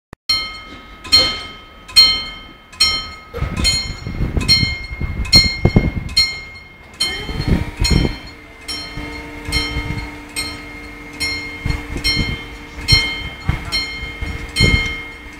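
Level-crossing warning bell striking about once a second, each stroke ringing on, while the red light signals the crossing is closing. About halfway through, a low steady hum joins the bell.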